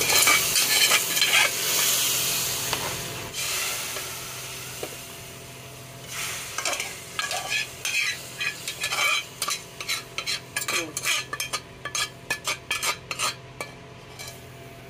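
Ghee-fried vermicelli and nuts poured into a steel pot of hot milk, sizzling loudly for the first few seconds before the hiss dies away. After that come many short, irregular clicks and scrapes of steel cookware.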